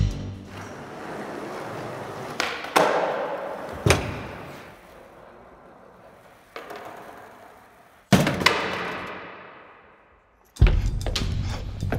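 Skateboard on a hard floor: several sharp clacks of the board, each followed by the wheels rolling and slowly fading away.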